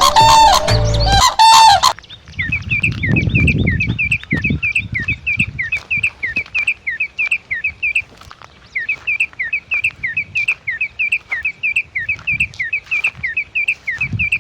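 Music for about the first two seconds, then a bird chirping: short, high chirps repeated three or four times a second, with a short pause around the middle.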